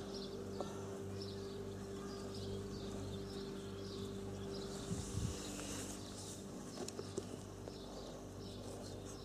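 Outdoor garden ambience: small birds chirping over and over against a steady low hum, with a few light knocks about five and seven seconds in.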